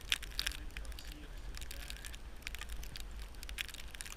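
Steady low wind rumble on the microphone with irregular crackling and crunching of snow.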